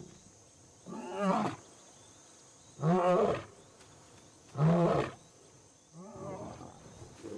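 Male African lion roaring: three loud, deep roars about two seconds apart, then softer grunts near the end.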